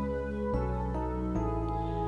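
Soft background music of sustained chords, changing to new chords about half a second and a second and a half in.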